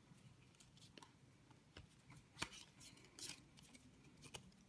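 Faint rustling and scattered light clicks of Pokémon trading cards being handled and shuffled through by hand, with a couple of sharper clicks in the middle.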